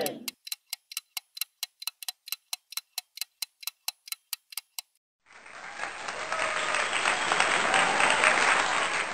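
Clock-ticking countdown timer sound effect, about four ticks a second, stopping about five seconds in. Then recorded applause fades in and goes on steadily, marking the answer reveal.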